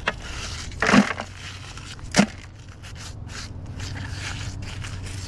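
Pieces of scrap metal pulled off a fishing magnet being handled and set down: a knock about a second in, a sharper knock about two seconds in, with light scraping and rubbing between.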